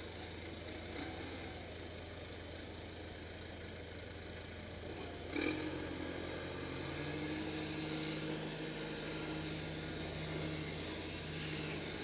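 John Deere 310D backhoe loader's diesel engine running as it drives with a load in the front bucket. A single clank comes about five seconds in, and right after it the engine pitch rises and holds steady.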